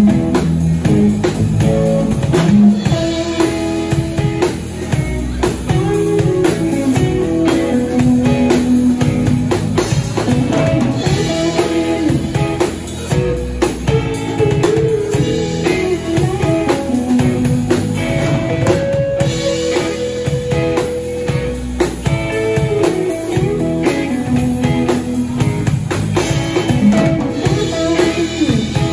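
Live instrumental jam by a band with electric guitars and a drum kit: a melodic guitar line of held notes over a steady drum groove, with no singing.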